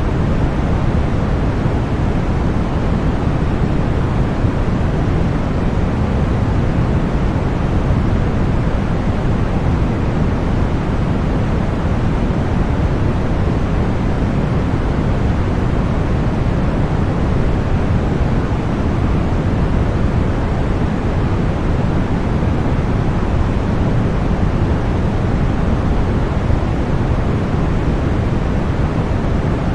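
Continuous white noise: a steady, unchanging hiss with most of its weight in the low end, even in level throughout.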